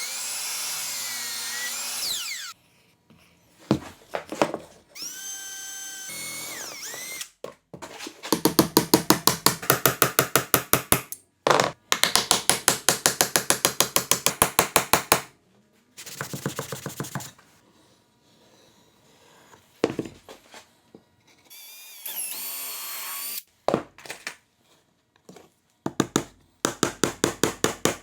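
A series of short, separately cut bursts of power-tool noise on wood: a whining cut at the start, a brief steady motor hum, and two long stretches of rapid, evenly repeated hammering strikes, with a shorter stretch of the same strikes near the end.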